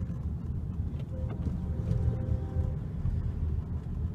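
Low, steady rumble of a car heard from inside its cabin. A faint held tone sounds for about a second and a half partway through.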